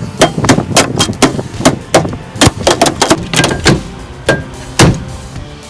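A microwave oven being smashed: a rapid series of hard blows on its casing, about three to four a second, slowing to a few spaced hits near the end.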